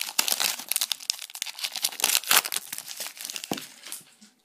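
Foil booster-pack wrapper crinkling and tearing as it is opened by hand and the cards are pulled out, in a dense run of irregular rustles that thins out and fades near the end.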